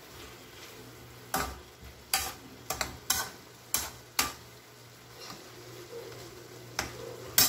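Metal spoon scraping and clinking against a metal frying pan while stirring food in sauce, with a low sizzle from the pan. The sharp clinks come in an irregular run starting about a second in, then two more near the end.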